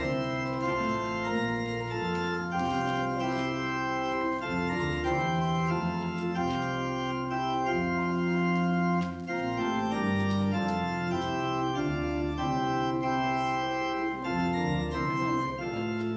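Church organ playing a hymn in held chords that change every second or so, with a brief break between phrases about nine seconds in.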